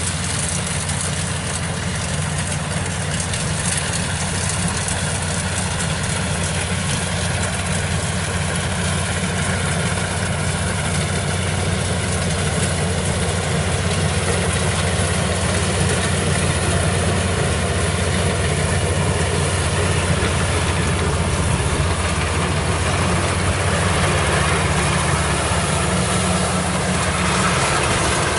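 Kubota rice combine harvester's diesel engine and threshing machinery running steadily while it cuts ripe rice, growing a little louder near the end as the machine comes close.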